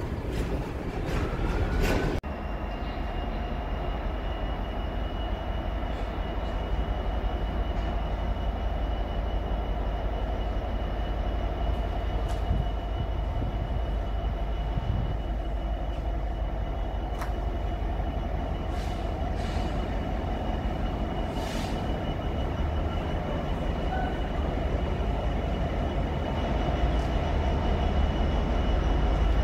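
Container freight train rolling past, then standing still after about two seconds, with a steady diesel engine hum and a faint high tone. Near the end a Class 66 diesel locomotive comes in on the adjacent line, growing louder.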